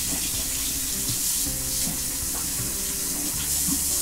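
Kitchen faucet running steadily into a sink, the stream splashing over a split leek as its layers are rinsed clean of grit.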